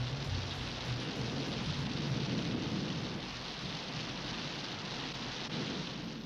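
Heavy rain pouring steadily, with a low rumble of thunder under it in the first few seconds.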